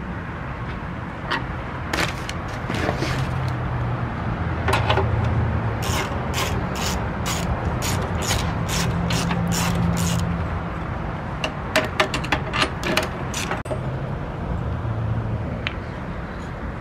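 Ratchet wrench clicking in a steady run of about two to three clicks a second while the battery tie-down hardware is tightened, followed a little later by a few louder metal knocks.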